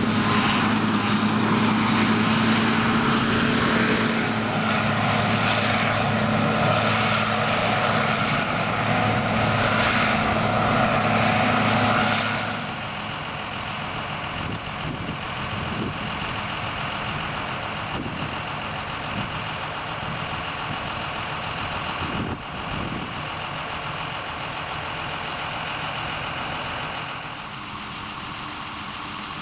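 Heavy diesel harvest machinery running: a loud steady engine drone with a strong low hum, which changes abruptly about twelve seconds in to a quieter engine sound with a few knocks.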